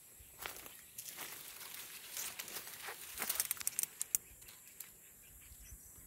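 Faint rustling and crackling of dry palm fronds and leaves brushed close to the microphone, an irregular run of small clicks that is busiest about three to four seconds in, then dies away.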